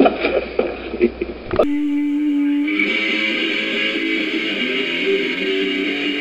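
A few sharp knocks and clatters from a stunt crash, then a sudden cut to a garage punk band playing live: one held electric guitar note, joined about three seconds in by the full band with distorted guitars.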